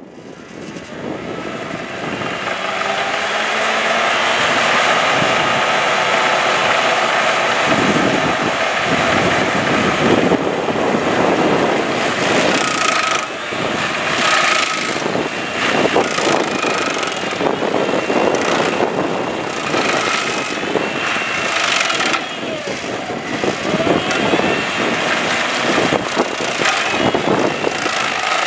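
Bandit stump grinder's engine running hard while its toothed cutter wheel grinds into a tree stump. The engine comes up over the first few seconds, then the grinding goes on with uneven surges.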